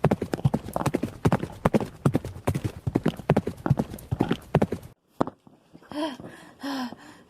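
Galloping horse hoofbeats, a fast, dense clip-clop run that stops suddenly about five seconds in.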